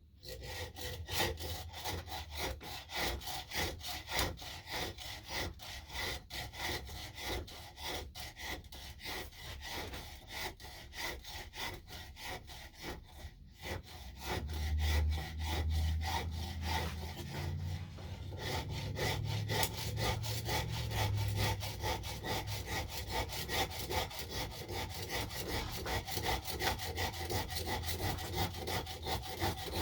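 Hand file rasping back and forth on a wooden axe handle, a quick, steady run of scraping strokes as the handle is worked down to shape. A low rumble joins about halfway.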